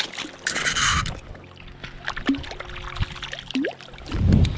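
A brown trout splashing at the surface of shallow stream water, one short, sharp splash about half a second in. Near the end there is a low thump.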